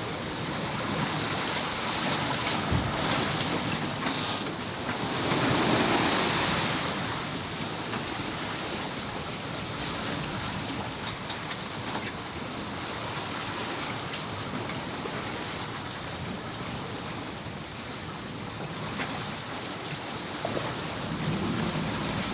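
Wind and waves around a sailing yacht under way, with wind buffeting the microphone. The rush of water swells louder for a couple of seconds about five seconds in.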